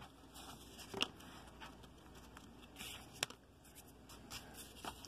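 Faint rustling and light clicks of a stack of baseball trading cards being handled in the hand, with a sharp tick about a second in and another just past three seconds.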